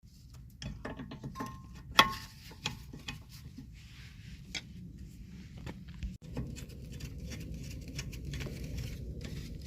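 Metal clicking and clanking of hand tools and brake parts as a rear brake caliper is fitted back over new pads, with one sharp metallic clank about two seconds in. A steady low hum sets in about six seconds in.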